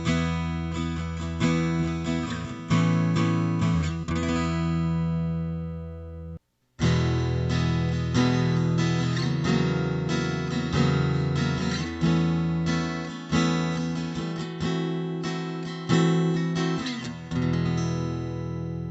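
Acoustic guitar strumming and picking chords, heard through a Cuvave Cube Baby acoustic guitar pedal that reshapes its tone. The chords ring and fade, the sound drops out abruptly for a split second about six and a half seconds in, and the playing then resumes and rings out near the end.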